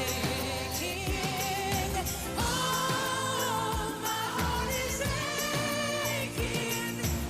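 Pop song playing, with a sung lead vocal holding long notes over bass and drums.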